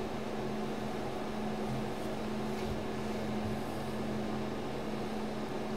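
Room tone: a steady low hum with a faint hiss beneath it, unchanging throughout.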